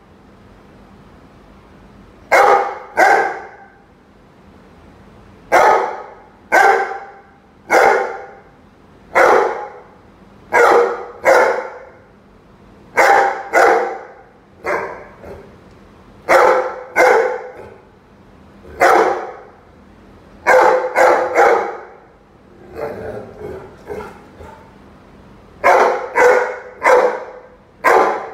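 Rhodesian Ridgeback barking repeatedly at a rubber chicken toy, mostly in quick pairs of barks every second or two, with a run of softer, quieter barks in the middle.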